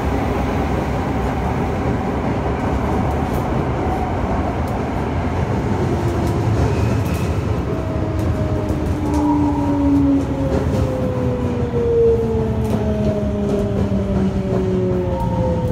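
Onboard running sound of a Toei 5300 series subway train with Mitsubishi GTO-VVVF traction control: a steady loud rumble of wheels and motors, with a few high tones sliding slowly down in pitch over the second half.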